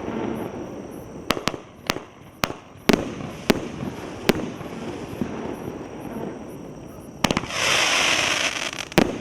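A 500-gram consumer firework cake firing: sharp bangs come one after another at uneven gaps over a low rumble. About seven seconds in, a bang is followed by a loud crackling burst lasting about a second and a half, and one more bang comes near the end.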